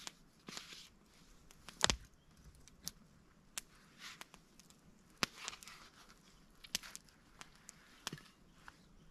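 Soft rustles and scattered clicks of hands handling food and utensils: a knife spreading paste on pita bread, then a wooden skewer of grilled meat laid on the bread and slid out through the folded pita. One sharper click comes about two seconds in.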